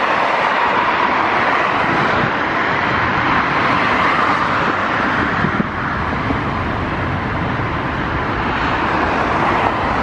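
Boeing 737 MAX jet engines (CFM LEAP-1B) at takeoff power during the takeoff roll: a steady, loud rushing noise, with a deeper rumble building from about three seconds in.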